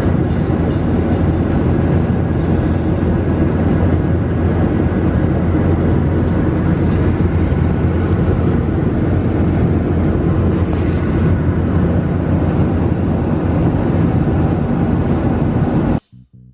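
Steady cabin noise of a jet airliner in flight, the engines and rushing air heard from inside the cabin. It cuts off suddenly near the end.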